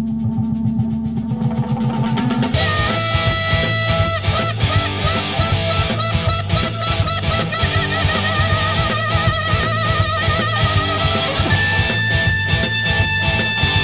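Blues-rock band playing an instrumental passage: electric guitar holding wavering, vibrato notes over bass guitar and drum kit, with the full band coming in strongly about two and a half seconds in.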